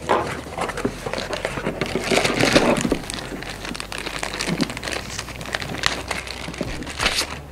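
Cardboard box flaps being opened, then clear plastic packaging crinkling and rustling as a wrapped device is lifted out and handled, with irregular small crackles and clicks.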